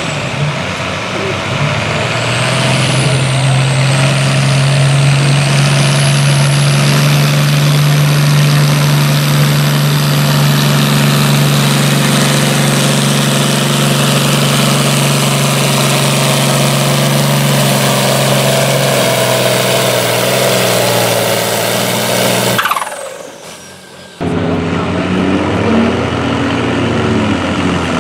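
International Harvester farm tractor's diesel engine running hard under load while pulling a weight-transfer sled, a steady heavy drone with a high whine that climbs in pitch over the first several seconds. About 23 seconds in the engine sound drops away suddenly, and engine noise comes back abruptly a second and a half later.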